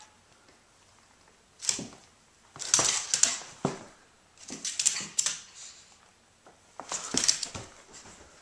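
A small dog's claws scrabbling and clicking on a hardwood floor in several short bursts as it dashes about in play.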